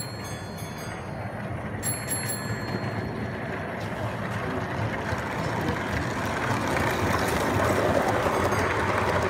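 Model railway train running along the track, its wheels and motor getting steadily louder as it draws near and passes close by.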